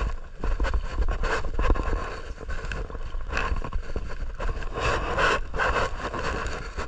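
Wind noise on the microphone, a constant low rumble, with irregular rustling, crackling and small knocks throughout.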